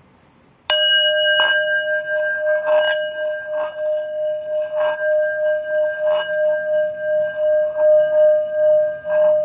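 Bronze bowl played as a singing bowl: struck once with a wooden stick (half a chapati rolling pin roughened with sandpaper) about a second in, then made to sing by circling the stick around its rim. It gives one steady ringing tone with higher overtones, swelling with a soft rub about once a second as the stick goes round.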